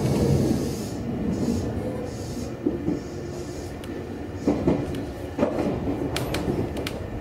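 Meitetsu 6800 series electric train running, heard from inside the front car as a steady low rumble. In the second half the wheels pass over the track with a series of sharp clicks and knocks, several coming close together near the end.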